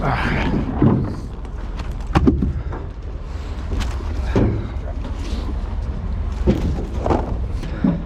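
Heavy equipment engine, most likely the crane's, running with a steady low rumble, with several sharp metal knocks and clanks from the work scattered through it.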